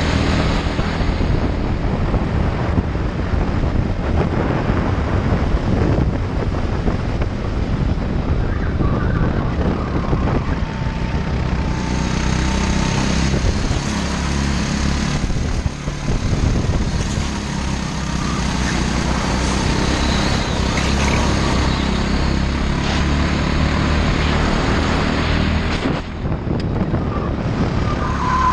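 Go-kart engine running hard from the driver's seat, with wind buffeting the onboard microphone; the engine note dips briefly twice, about halfway and near the end.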